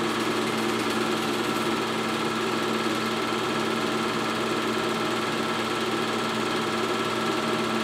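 Super 8 film projector running, a steady motor whir with the fast even clatter of the film transport.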